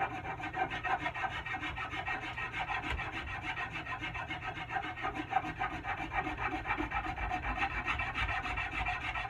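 Hand rasp scraping over a wooden axe handle in steady, repeated back-and-forth strokes, rounding off the handle's swell.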